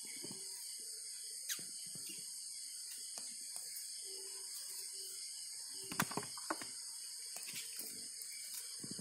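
A steady high-pitched chorus of night insects, with scattered light clicks and rustles of dry bamboo debris; the loudest clicks come about six seconds in.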